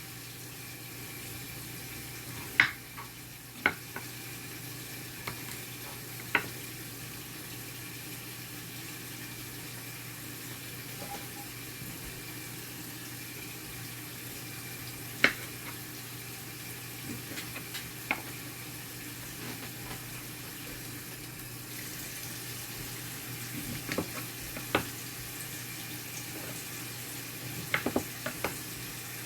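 Steady kitchen hiss with sharp clicks and knocks of kitchenware every few seconds, some in quick clusters near the end.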